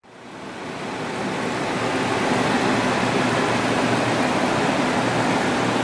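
Steady rushing of grow-tent circulation fans with a low hum under it, fading in over the first second or so and then holding even.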